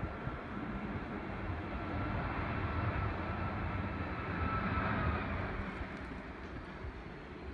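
Boeing 757-200 jet engines heard across the airfield as the airliner rolls down the runway: a steady rumble with a thin whine that sags slightly in pitch and fades about five seconds in.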